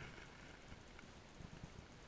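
Near silence, with a faint click about a second in and a few faint soft knocks a little later.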